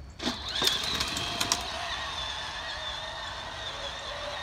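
Battery-powered ride-on toy jeep starting to move with a few clicks, then the steady whine of its electric drive motors and gearboxes as it drives.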